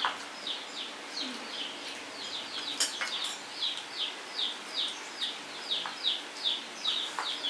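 A bird chirping over and over: short, high chirps that fall in pitch, about two or three a second, with a couple of sharp clicks about three seconds in.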